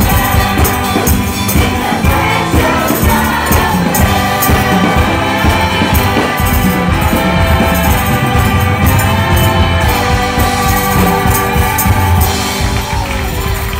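Choir singing a lively song with a steady beat and regular sharp percussion strokes.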